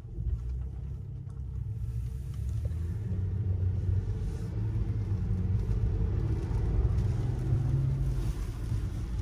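Low, steady rumble of road and tyre noise inside the cabin of a 2021 Mercedes S-Class driving on a wet road, growing louder over the first few seconds.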